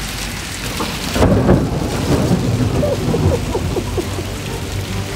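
Heavy rain mixed with hail pouring down on the street. About a second in, a low rumble of thunder comes in and lasts to the end.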